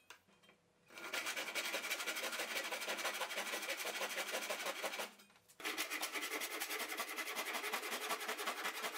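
Handsaw cutting the wedge slot into the end of an oak hammer handle, in quick, even back-and-forth strokes. The sawing starts about a second in and stops briefly a little past halfway before going on.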